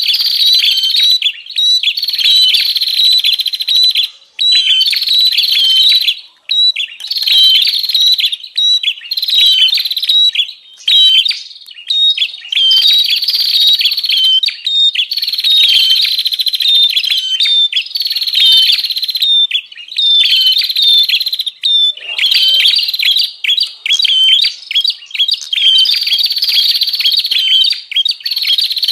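Prenjak (prinia) chattering excitedly: a fast, continuous series of sharp, repeated chip notes in bursts of a second or two with brief breaks. This is the agitated 'ribut' call used as a lure to draw wild prenjak in.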